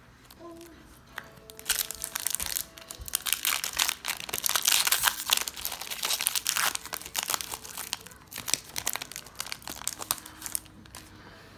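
Foil-lined Pokémon booster pack wrapper crinkling and being torn open by hand: a dense run of crackles that starts about two seconds in and stops about a second before the end. Faint background music runs underneath.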